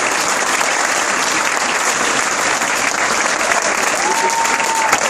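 Audience applauding steadily after a song, a dense patter of many hands clapping. Near the end a brief high note rises and holds for about a second above the clapping.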